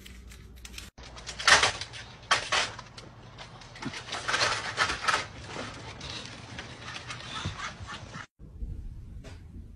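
Several bulldogs bursting out through a pet door onto a wooden deck: irregular clattering and scrabbling with a few sudden loud knocks.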